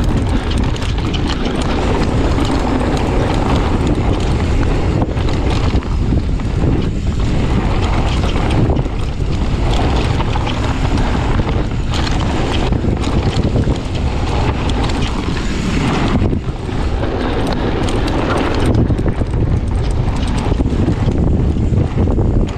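Wind buffeting an action camera's microphone during a fast mountain-bike descent, with the bike rattling and knocking over a rough, rocky trail.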